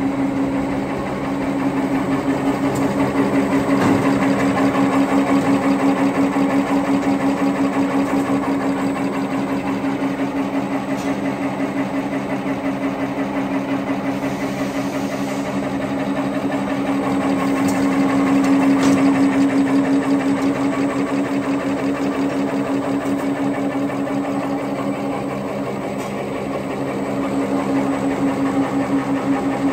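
Automatic napkin paper folding machine running at production speed: a steady mechanical hum with a fast, even rhythmic clatter from the folding and transfer mechanism.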